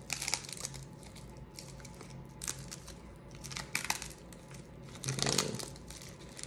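Foil wrapper of a 1991 Pacific Pro Football Plus card pack being torn open by hand, in scattered crinkles and rips. The loudest comes about five seconds in.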